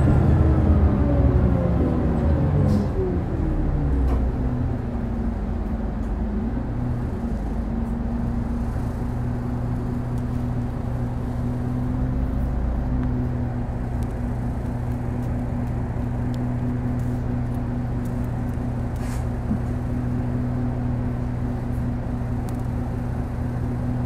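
Mitsubishi Fuso LKG-MP37FKF city bus's diesel engine heard from inside the cabin: its pitch falls over the first few seconds, then it idles steadily as the bus stands at a stop.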